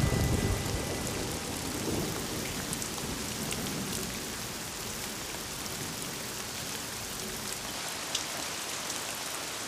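Heavy rain pouring down and streaming off roof eaves. A peal of thunder dies away in the first second or so, then the downpour runs on steadily, with a few faint drip ticks.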